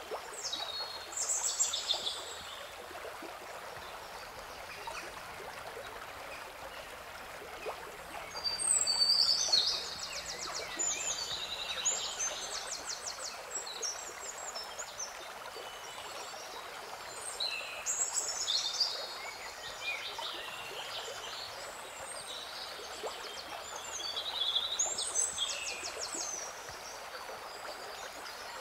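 Songbirds singing repeated trilled phrases, loudest about nine seconds in, over a steady rushing noise like running water.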